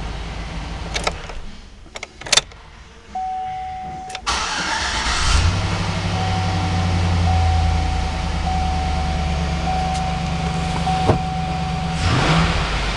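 A GM full-size truck's engine is switched off with a few clicks. A single chime tone sounds, then the starter cranks for about a second and the engine catches about five seconds in, settling to a steady idle. A dashboard warning chime beeps in a repeated series of tones over the idle, and the engine speed rises briefly near the end.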